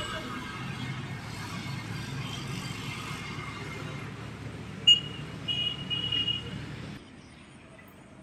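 Steady road traffic noise, with two high toots about five seconds in, a short one and then a longer one. The traffic noise drops away abruptly about a second before the end.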